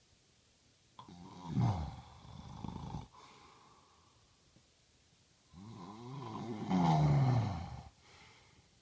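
A man snoring: two long snores about four seconds apart, each sliding down in pitch, the second one louder.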